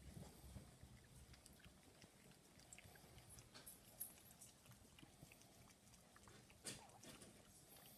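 Faint wet licking and small mouth clicks of a mother dog cleaning her newborn puppies, with a couple of sharper ticks about four and seven seconds in.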